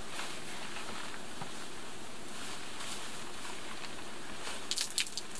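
Steady background hiss, with a quick run of sharp slaps and taps near the end as wet socks are peeled off and tossed onto a wooden doorstep.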